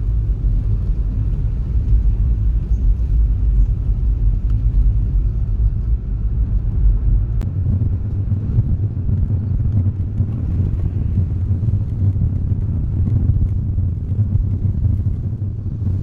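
Steady low road and engine rumble inside a small light car's cabin while it drives along a paved road. The deepest part of the rumble eases about seven seconds in.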